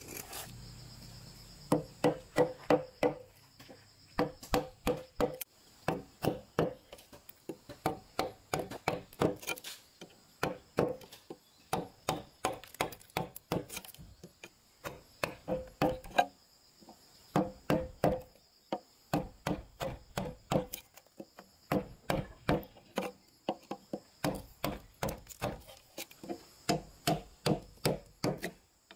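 Wooden mallet striking a wood chisel, chopping a mortise into a timber beam: sharp woody knocks in runs of about two a second, broken by short pauses.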